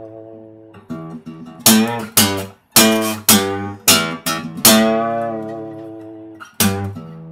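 Background music on guitar: a quick run of strummed chords, then one chord left to ring for about two seconds, and a last strum near the end.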